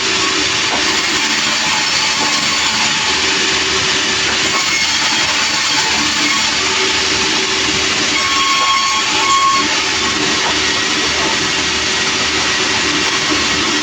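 Sawmill machinery running steadily: a loud, even mechanical noise with a low hum and a hiss, unbroken throughout.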